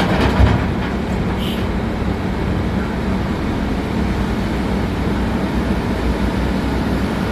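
Komatsu PC200-7 excavator's diesel engine running steadily, with a few knocks in the first half second.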